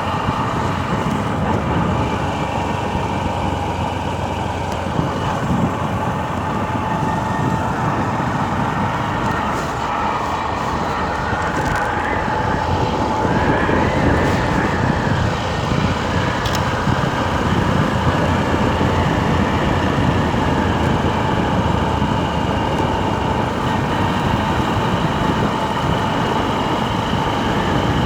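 Honda Livo 110cc motorcycle's single-cylinder engine running on the move, mixed with steady wind and road noise. Its pitch rises and falls gently a few times around the middle.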